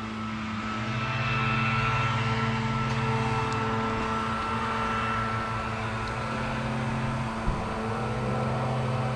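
A steady motor hum with a low drone and a few higher steady tones, growing a little louder about a second in and briefly dipping with a small tick about two-thirds of the way through.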